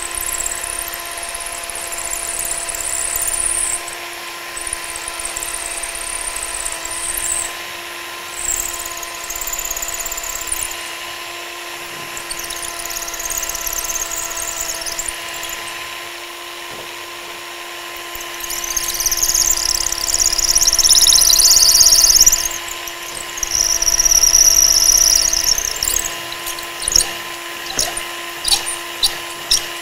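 Electric drill running steadily while its bit bores a pin hole through a wooden hinge barrel, with high-pitched squeals in spells as the bit cuts the wood. Near the end comes a run of sharp ticks, about two a second.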